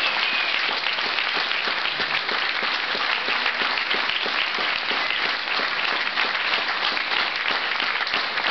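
An audience applauding, many people clapping steadily at the end of a performance.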